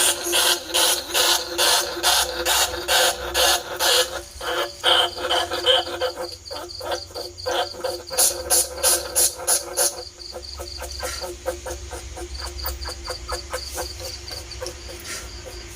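Greater bandicoot rat calls played as a trapping lure: a fast, rhythmic run of squeaks and clicks, about four a second at first, then a quicker, softer chatter of about eight a second for the last few seconds, with a thin high-pitched tone pulsing through it.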